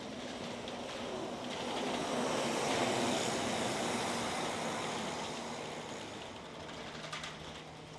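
A vehicle passing by: a rush of noise that swells to its loudest about three seconds in and then fades away, with a hum that drops to a lower pitch as it moves off.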